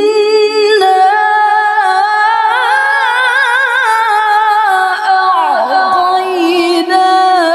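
A woman reciting the Quran in the melodic tilawah style, unaccompanied, drawing one syllable out into a long ornamented phrase. The held note breaks into a rapid wavering trill partway through, then slides down and settles on a new pitch near the end.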